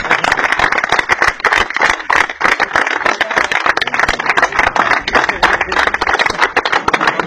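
A close crowd of men clapping fast and unevenly, many hands at once, with voices mixed in.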